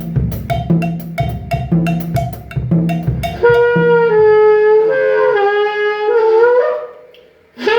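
Music: a steady drum beat for about three and a half seconds, then a horn-like wind instrument playing a slow line of long held notes. The notes fade out and stop briefly near the end.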